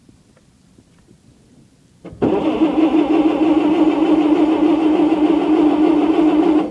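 Bobcat 610 skid steer's engine being turned over by its starter on a cold start, choke on: it cranks steadily without firing. The cranking begins about two seconds in, runs for about four and a half seconds and cuts off suddenly.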